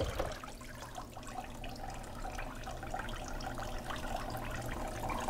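Water running from a kitchen tap into a sink, steady, with small irregular splashes and clicks.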